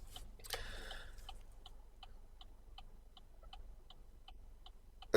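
Faint steady ticking, about three ticks a second, with a soft breath-like rush about half a second in.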